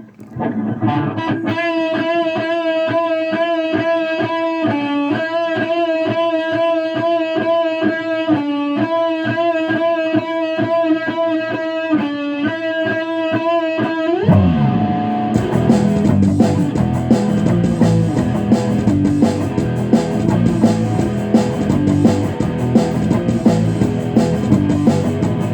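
Rock band's instrumental intro: a guitar alone picks a repeated rhythmic riff that shifts pitch every few bars, then about 14 seconds in bass and drums come in, with cymbals about a second later, and the full band plays on.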